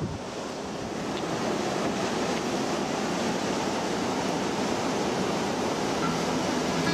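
Ocean surf washing steadily, with wind noise on the microphone; it grows a little louder about a second in.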